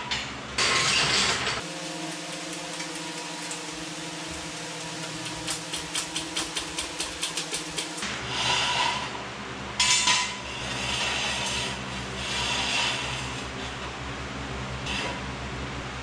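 Steel jack stands and a floor jack being handled and set up on a concrete garage floor: metal clinks and scraping, with a run of quick, even clicks, about five a second, midway.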